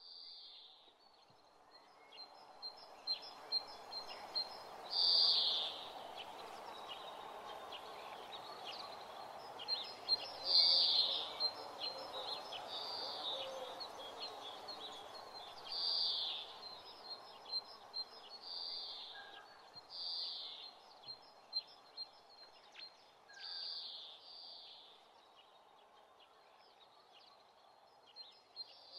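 Outdoor bird ambience: birds calling, with a short high call repeated every few seconds over a fast, faint high-pitched ticking chirr and steady background noise.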